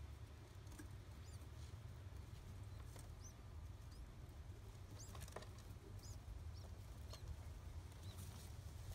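Faint, short, high-pitched peeps from a newly hatched pigeon squab, repeated irregularly many times, as it begs to be fed by its mother. Under them runs a steady low rumble.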